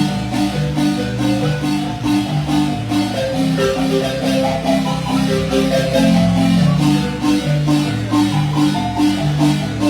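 Marimba playing a son: quick struck and rolled notes over a low bass line that steps from note to note.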